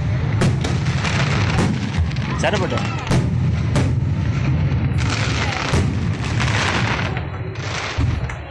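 Aerial firework shells bursting overhead in a rapid barrage: sharp bangs one after another over a continuous low rumble. The barrage dies down near the end.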